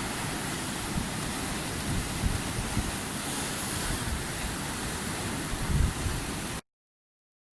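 Ocean surf washing steadily under strong gusty wind buffeting the microphone, the rumbling gusts coming and going; the sound cuts off suddenly near the end.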